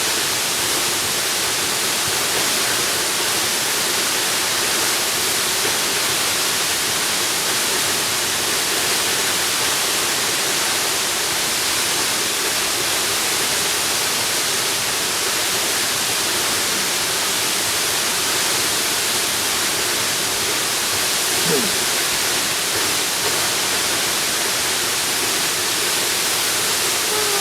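Waterfall: a steady, even rush of falling water. A brief faint falling tone comes about three-quarters of the way through.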